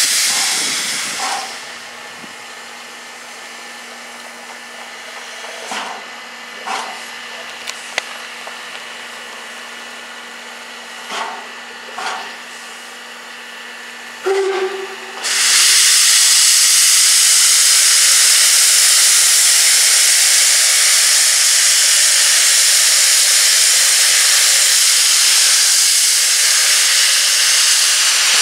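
Class 01 steam locomotive letting off steam. A loud hiss dies away about a second and a half in, leaving a quieter steady hum broken by a few short puffs. About fourteen seconds in there is a short whistle toot, then a sudden loud, steady hiss of steam from the open cylinder drain cocks that lasts to the end.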